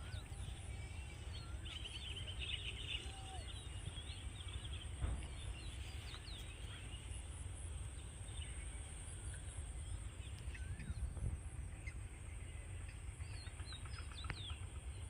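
Several birds chirping and calling in short, scattered notes over a steady low rumble, with a thin steady high-pitched drone.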